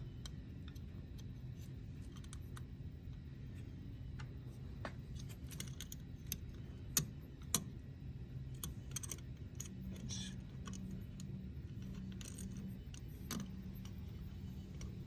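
Small metal clicks and taps of a hex driver and screw as a mounting screw is started by hand through a circuit board and spacers into a stepper motor body, with two sharper clicks about seven seconds in. A low steady hum sits underneath.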